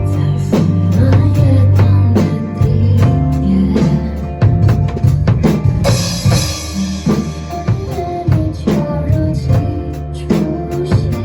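Pop song with a drum kit played along to it: a steady beat of kick and snare hits over bass and melody, with a cymbal wash about six seconds in.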